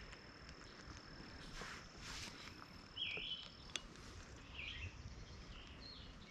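Quiet creek-side outdoor ambience with a few short bird chirps. A thin, steady high tone runs until about three and a half seconds in, and there are a couple of brief rushes of noise and a single click.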